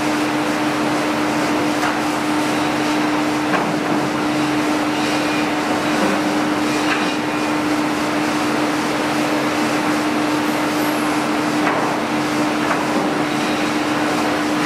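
Sawmill lumber-handling conveyor machinery running: a steady mechanical din with a constant hum, and a few light knocks now and then.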